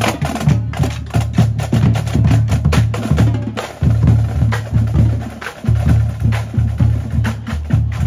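Parade drumming: fast, dense drum strikes over a heavy low beat, loud, with two brief breaks in the rhythm.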